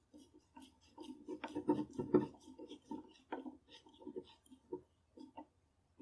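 Flat-blade screwdriver turning the steel side-plate screw on a French Modèle 1892 revolver's frame, tightening it. The sound is a run of small irregular metal scrapes and clicks, busiest about two seconds in.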